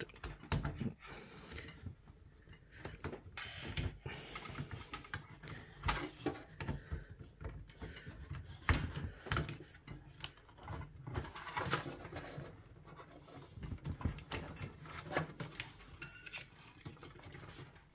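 Irregular clicks, knocks and scrapes of a Pentium 4 heatsink-and-fan being worked loose from its socket 478 retention clips and lifted out of the PC case.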